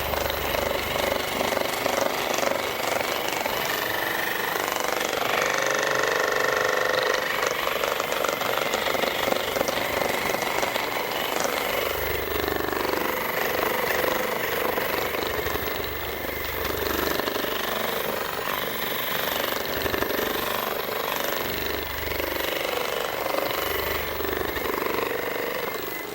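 Percussion massage gun running steadily with a rapid hammering buzz, stopping near the end.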